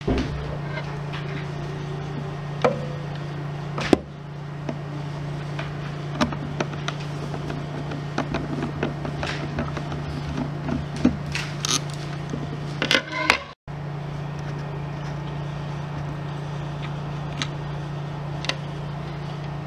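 Small clicks and taps of a screwdriver and fingers working the needle clamp of a Handy Stitch mini sewing machine, scattered and irregular, over a steady low background hum.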